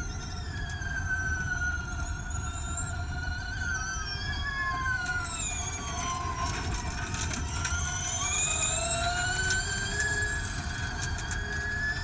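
Electric drivetrain of a Gen2 Formula E race car whining at speed over road and wind rumble. The whine falls in pitch as the car slows into a corner, then rises again as it accelerates out.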